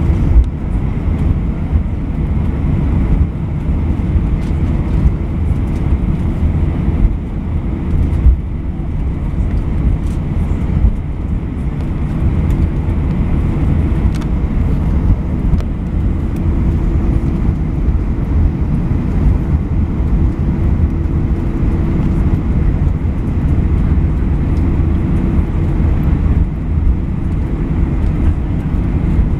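Cabin noise of an Airbus A320 taxiing: a steady low rumble from the engines and the wheels rolling over the concrete, heard inside the cabin. A few short thumps come through, one about half a second in and another about eight seconds in.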